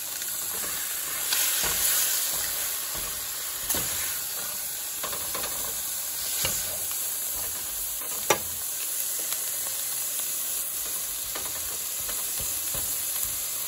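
Crumbled tofu and onions sizzling in a hot skillet, stirred with a silicone spatula that scrapes across the pan now and then. One sharp tap about eight seconds in.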